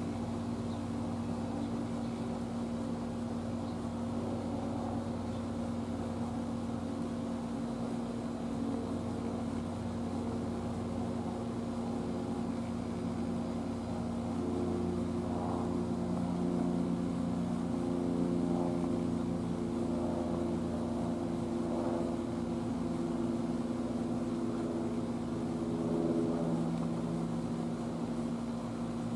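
Steady low mechanical hum made of several held tones, growing a little louder about halfway through.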